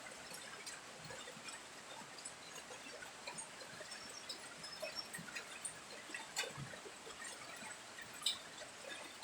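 Rain falling, with water dripping and scattered sharp ticks of drops, and a few faint short chirps now and then.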